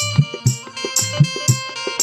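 Instrumental music interlude of a live Bhagat folk-narrative performance: a drum beat with bright cymbal strikes about twice a second under steady held melody notes.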